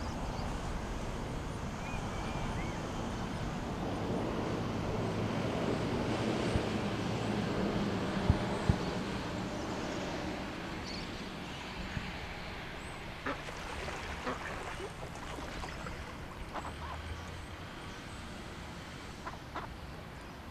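Wind rumbling on the microphone by open water, with waterfowl calling now and then, more often in the second half.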